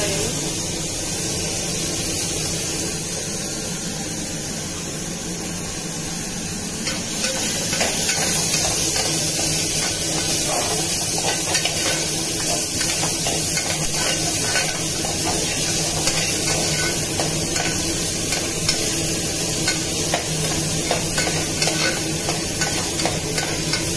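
Chopped onions sizzling in hot oil with cumin and mustard seeds in an aluminium pressure cooker, stirred with a steel spoon that scrapes and clicks against the pot. About seven seconds in, the sizzle and stirring get louder.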